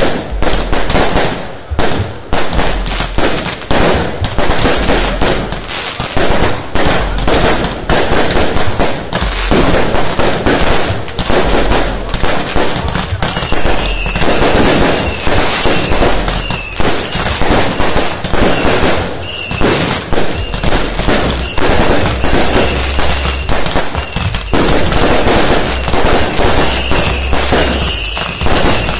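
Firecrackers and fireworks going off in a dense, continuous rapid crackle of bangs, with no break.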